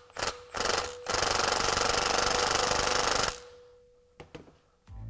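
Milwaukee FUEL brushless cordless impact tool running the bolt of a valve spring compressor on an LS cylinder head. It gives two short bursts, then about two seconds of steady rapid hammering with a motor whine, and then stops. A couple of small clicks follow.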